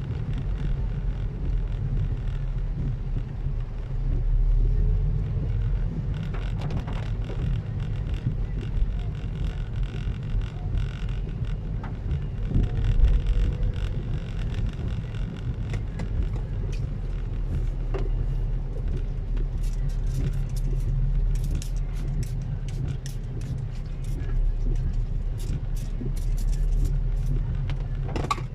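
Steady low rumble of a moving motor vehicle, with scattered sharp ticks in the second half.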